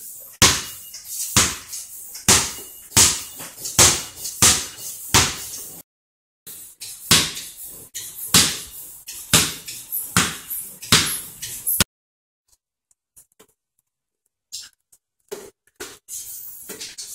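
Basketball dribbled on a concrete garage floor: a steady run of sharp bounces, about one and a half a second. The bouncing cuts off abruptly about six seconds in and again about twelve seconds in, then near silence, then a few fainter, scattered knocks near the end.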